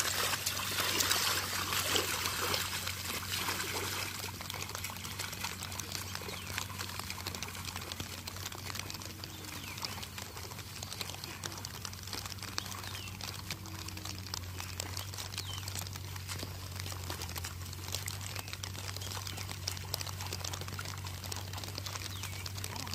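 Muddy water sloshing and splashing as a bamboo ladder leveller is dragged through a flooded rice paddy. It is loudest in the first few seconds, then settles to a steady watery hiss over a low steady hum.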